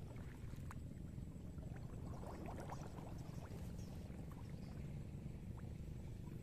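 Faint, light splashing and dripping of shallow water, scattered ticks over a steady low rumble.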